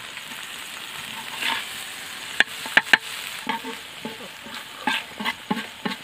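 River fish in masala frying in oil in a pan, sizzling steadily, while a spatula stirs and scrapes it. About halfway through there are three sharp knocks of the spatula on the pan, then a run of quick scraping strokes, two or three a second.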